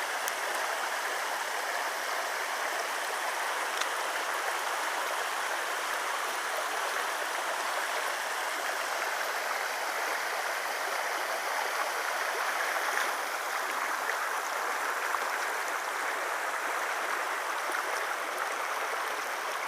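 Floodwater rushing steadily, an even, unbroken rush of water.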